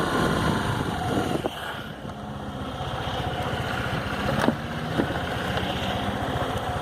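Honda PCX scooter's single-cylinder engine running, louder at first, easing off about a second and a half in and then gradually building up again, with a few sharp clicks. Under throttle the scooter makes a tinny rattle like banging sheet metal that stops the moment the throttle is released, a noise present since new whose cause the owner does not know.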